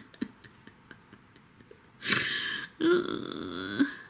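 A woman's loud breathy exhale about two seconds in, followed by a short wordless vocal sound lasting about a second, after a stretch of faint small clicks.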